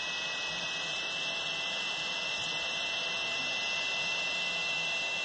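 Tronxy FDM 3D printer running mid-print: a steady whir of its print-head fans, with a high, steady whine.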